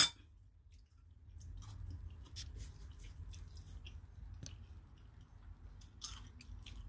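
Faint scattered clicks and soft rubbing as the phone camera is picked up and moved by hand, with a hand gripping the plastic mixing bowl.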